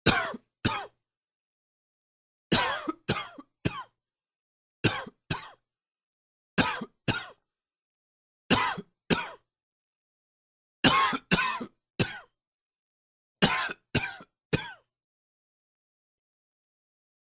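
A man coughing from allergies, in seven short bouts of two or three coughs each, a new bout every couple of seconds.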